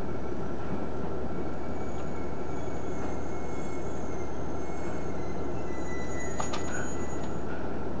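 Cabin sound of a KiHa 110 series diesel railcar running along the line: a steady rumble of engine and wheels on the track. Faint high squeals come and go, and two sharp clicks come close together about six and a half seconds in.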